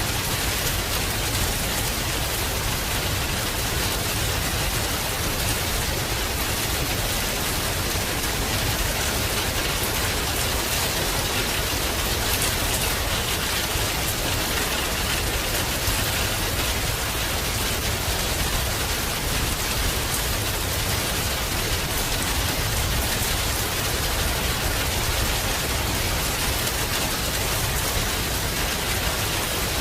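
Heavy rain falling steadily, an even, unbroken rush of rain with no distinct thunderclap.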